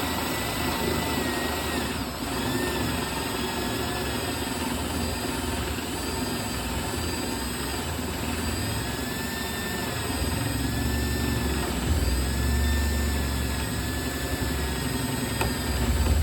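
Electric drill spinning a 3/4-inch paddle bit as it bores through wood, the motor whine dipping and recovering in pitch under load. It cuts off suddenly at the end as the bit breaks through.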